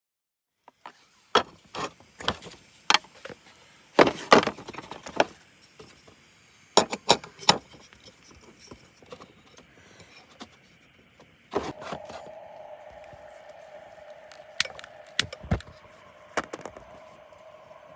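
Sharp knocks and clatters of hard objects being handled. About two-thirds of the way in, a loud knock starts a steady mid-pitched hum that runs on under a few more knocks.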